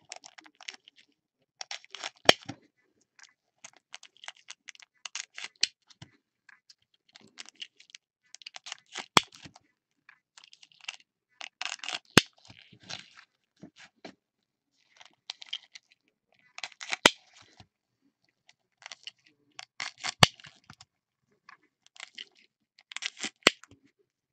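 Foil wrappers of Topps Chrome football card packs crinkling and tearing as they are opened and handled, in repeated crackly bursts. Sharp clicks come every few seconds.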